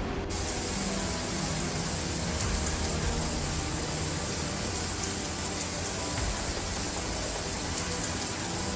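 Heavy rain pouring down, a dense steady hiss that sets in abruptly just after the start.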